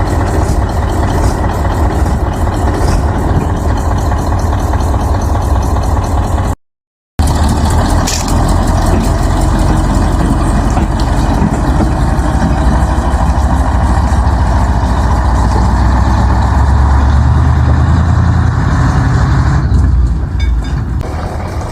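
Heavy diesel engine running steadily with a deep rumble, which grows heavier for a few seconds in the second half and eases off near the end. It cuts out completely for about half a second around seven seconds in.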